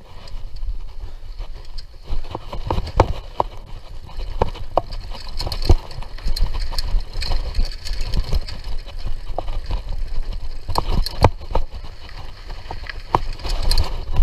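Mountain bike ridden along a dirt trail: a steady low rumble with frequent sharp knocks and rattles from the bike going over bumps and roots.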